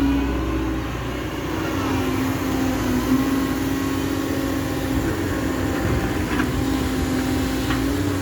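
Cat M315F wheeled excavator's diesel engine running steadily, with a constant humming tone over a low rumble. Two light clicks sound near the end.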